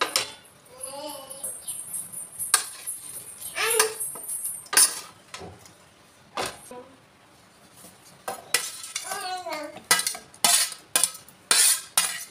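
Knocks, scrapes and clinks of a wooden spatula on a steel plate and a steel mixer jar as roasted green chillies and garlic are pushed into the jar, with a quieter stretch midway and a run of clinks near the end as the jar is handled onto the mixer base.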